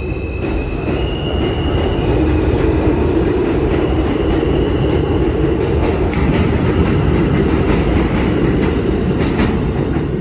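New York City Subway R160 train pulling out of an elevated station. The traction motors' whine steps up in pitch in the first couple of seconds as it accelerates, under a steady rumble of wheels on rail with clicks over the rail joints. The high end of the sound drops away near the end as the cars move off.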